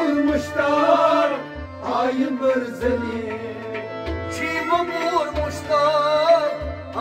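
Kashmiri Sufi song performed live: a male voice sings a wavering melodic line over a sustained harmonium, with a hand drum striking a low beat about every second.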